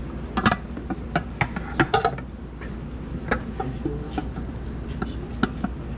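Nordic Ware plastic microwave cookware clicking and clattering as its lid and tray are handled, lifted apart and fitted back together: a series of light, sharp knocks, the loudest in the first two seconds.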